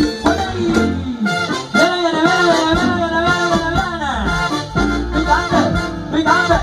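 Live salsa band playing, trumpets and percussion over a bass line. A wavering melodic line ends in a falling slide a little past the middle.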